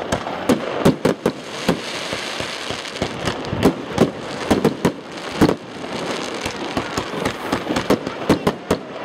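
Fireworks display: aerial shells bursting, with many sharp bangs in quick, irregular succession over a continuous noisy din.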